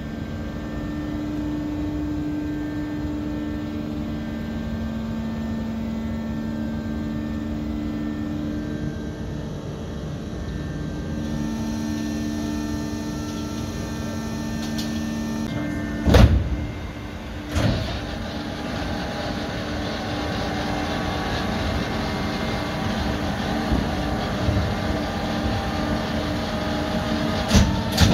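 Antonov An-124-100 landing gear being cycled during a retraction test on jacks. A steady mechanical hum with a few held tones gives way, a little past the middle, to two heavy clunks about a second and a half apart. After them a louder, hissy rushing of the moving gear runs on until another clunk at the very end.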